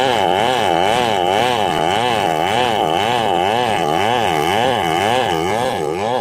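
Large two-stroke chainsaw running at full throttle, ripping lengthwise through a matoa log. Its engine pitch rises and falls in a steady rhythm as the bar is worked along the cut.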